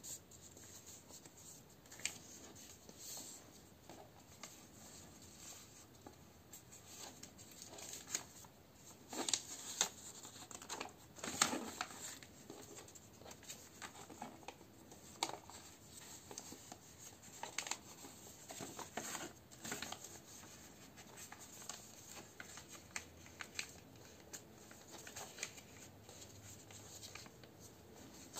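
A sheet of A4 paper being folded and creased by hand, pressed flat against a wooden tabletop: faint, intermittent rustling and short crinkling scrapes as the folds are made and smoothed, busiest in the middle.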